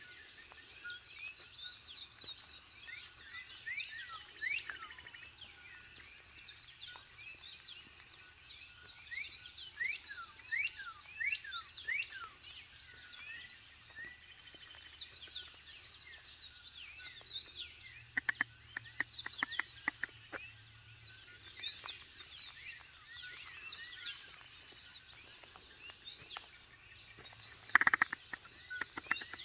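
Morning birdsong: many birds chirping and calling at once in a dense chorus. About two-thirds of the way through comes a quick run of sharp clicks, and near the end a single louder knock.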